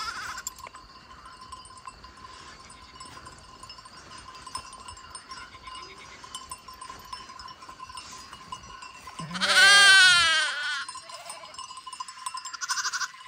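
Sheep bleating once: a long, wavering bleat about nine seconds in, well above a faint, steady background.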